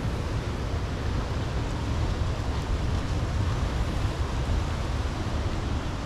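Ocean surf breaking on a rocky lava shore, a continuous rushing wash with no single distinct crash. Wind buffets the microphone with a gusty low rumble.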